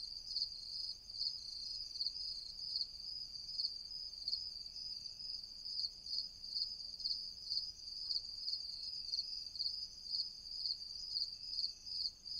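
Crickets chirping steadily, a high pulsing trill repeating at an even rhythm.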